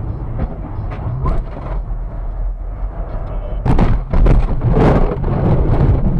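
Steady car-cabin road rumble with a few light clicks, then, about three and a half seconds in, a loud run of knocks and thumps with rattling lasting about two seconds as the dashcam is jolted and shaken.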